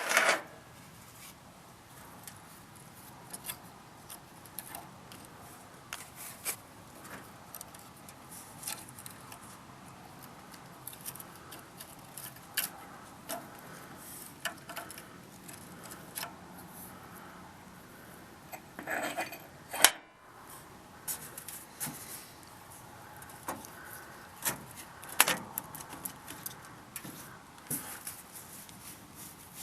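Small metal parts being handled, with light metallic clinks and taps scattered throughout and louder clanks in clusters a little past the middle and later on.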